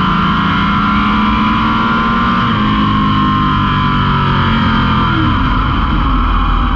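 Drag race car's engine running loud, its pitch falling gradually through the middle.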